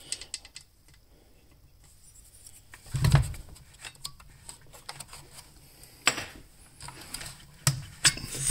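Scattered clicks, taps and rubbing of tools and metal parts handled on a partly dismantled four-stroke chainsaw, with one louder thump about three seconds in.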